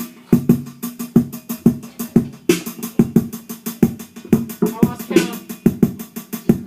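A steady, fast drum beat with evenly spaced hits, with a brief voice a little after halfway through.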